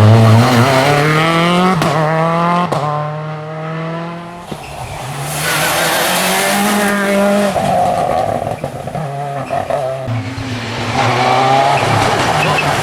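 Seat Córdoba WRC rally car's turbocharged four-cylinder engine revving hard and climbing in pitch, with quick drops at gear changes about two and three seconds in. It eases off briefly, then accelerates again through further shifts.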